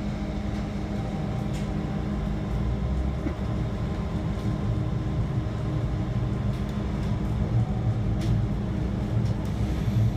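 Diesel railcar running between stations, heard from inside the passenger cabin: a steady engine hum and rolling rumble, with a few faint clicks from the wheels on the track.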